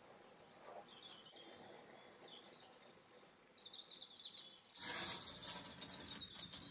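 Faint squeaks and brushing, then about five seconds in a loud crackling noise as yellow masking tape is pulled off its roll and laid along a drawer edge.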